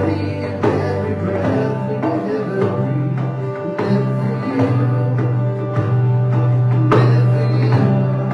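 Live band playing a song: acoustic guitars strumming over held electric bass notes and keyboard, with a box drum (cajon) striking the beat.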